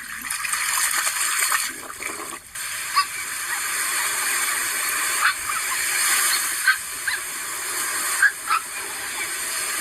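A steady hiss of rushing or spraying water, with a few brief high squeaks over it.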